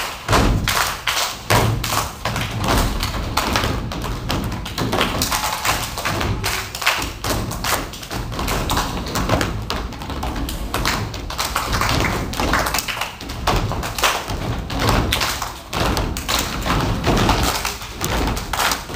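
Children's step team stomping in rhythm on a wooden stage floor: a steady, fast run of thumps and taps from many feet.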